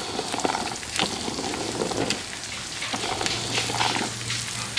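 Hot pizza-dough skulls with melted cheese and oil sizzling and crackling in a metal baking pan fresh from the oven, with many small pops.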